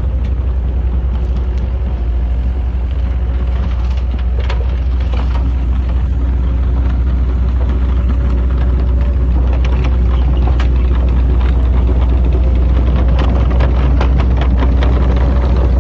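Heavy diesel engine of construction machinery running steadily with a deep low hum, growing a little louder about halfway through, with scattered short knocks and clanks on top.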